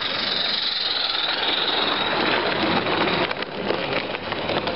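16mm scale live steam model locomotive hissing steam, with a run of sharp clicks and knocks about three seconds in.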